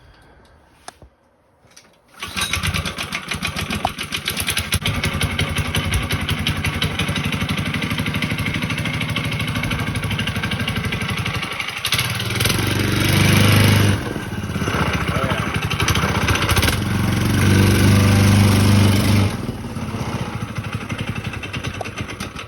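The 5-horsepower small engine of a homemade snow dog track sled starts about two seconds in and runs with a fast, even firing beat. It is revved up twice, louder each time, then settles back.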